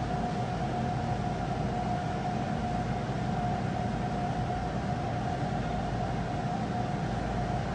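Large cargo ship passing close alongside the quay: a steady low rumble of its engines and machinery, with a single steady high whine held over it.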